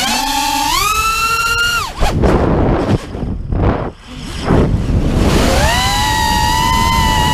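Small FPV quadcopter's brushless motors whining from its onboard camera. The pitch climbs near the start, then the whine drops away about two seconds in, leaving a rush of wind noise. About five and a half seconds in it climbs back and holds steady.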